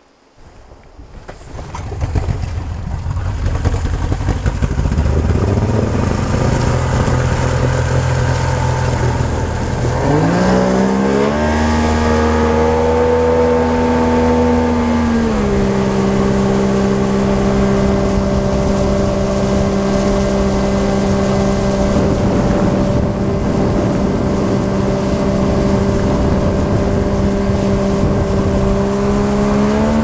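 A motor vehicle's engine running steadily. About ten seconds in it revs up with a rising pitch and holds there. About fifteen seconds in it drops to a lower steady pitch and keeps running.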